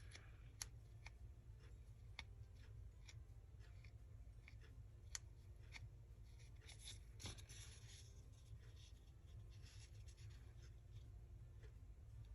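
Faint handling sounds of fingers fraying a fabric edge: soft rustles and scattered light ticks as loose threads are picked and pulled, a few ticks louder than the rest.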